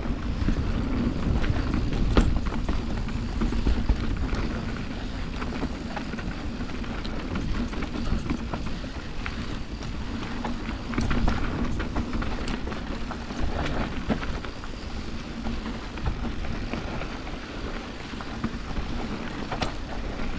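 Mountain bike riding fast down a dirt trail: wind rushing over the microphone and tyres rolling on the dirt, with the bike rattling and knocking over bumps throughout.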